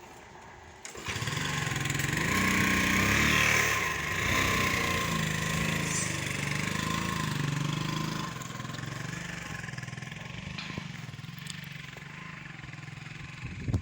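A small motor vehicle's engine running. It comes in about a second in, is loudest for the next few seconds, then eases off and keeps running more quietly.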